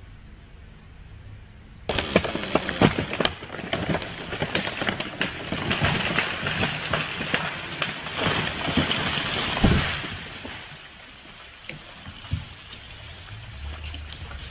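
A large felled tree going over: from about two seconds in, a dense crackle of snapping wood and branches crashing through the surrounding treetops, ending in a heavy thud near ten seconds in as the trunk hits the ground.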